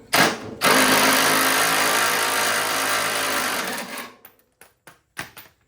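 Handheld power tool loosening a fastener on the mower deck: a short blip, then a steady run of about three seconds that fades out, followed by a few light clicks.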